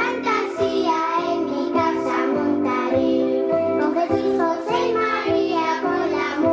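A group of young children singing together in unison over steady, sustained instrumental chords.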